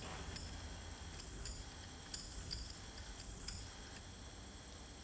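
Hand printing from a carved woodblock: a few short hissing strokes with small clicks and taps as the block is inked with a roller and paper is laid on it, over a low steady hum.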